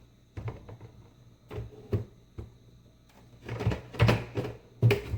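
Knocks and clicks of a monitor stand being pushed and fitted into the back of a gaming monitor, a handful of separate knocks, with the loudest cluster near the end.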